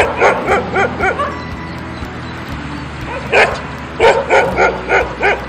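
A medium-sized dog barking in two quick runs of several short barks each, with a pause of about two seconds between them.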